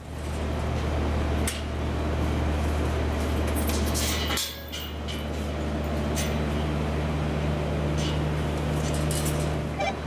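Building fire alarm sounding during a system test: a loud, steady alarm that starts suddenly, breaks off briefly about four and a half seconds in, then resumes.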